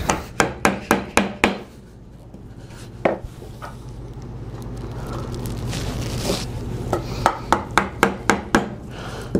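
Mallet striking a chisel as it chops a mortise into hardwood: a quick run of sharp knocks, about four a second, near the start, a lone blow about three seconds in, then another quick run from about seven seconds.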